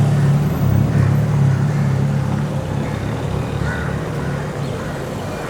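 A vehicle engine's low rumble, loudest about a second in and then slowly fading, over general street noise.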